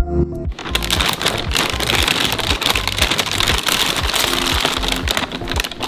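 Metallic anti-static plastic bag crinkling steadily as it is handled and pulled off a large graphics card, starting about half a second in, over background music with a steady beat.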